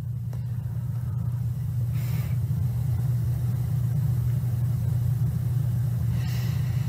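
A steady low rumble, with two faint brief hisses, about two seconds in and near the end.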